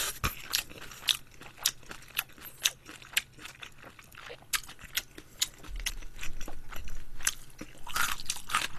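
Close-miked chewing of crunchy kimchi: crisp crunches, about two a second.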